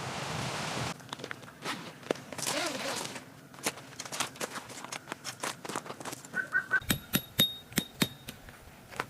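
A second of rustling noise, then a run of sharp clicks and knocks, growing denser and louder near the end, several with a brief high metallic ring.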